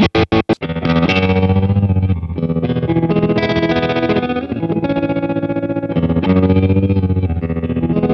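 Electric guitar played through an MXR tremolo pedal. A few fast, evenly chopped pulses give way, about half a second in, to held chords shimmering with a rapid on-off tremolo.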